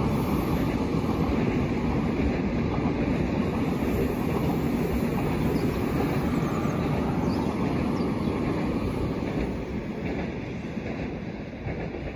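An RER C electric commuter train passes on the line below, its steady running noise fading over the last couple of seconds as it draws away.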